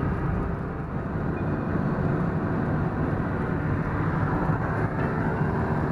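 Car driving along a highway, heard from inside the cabin: steady engine and road noise.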